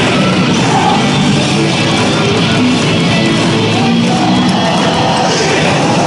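Loud rock music.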